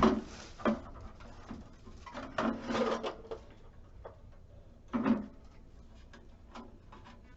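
Metal cash drawer and its plastic till insert being handled: sharp knocks and clicks, a longer scraping slide about two and a half seconds in, and another clunk about five seconds in.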